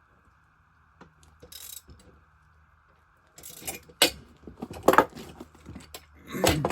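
Metal clinks and knocks from handling and tightening the clamp bolts on an Alaskan chainsaw mill's height-adjustment posts. A few light clicks at first, then busier clinking with sharper knocks about four and five seconds in, and a louder scrape and knock near the end.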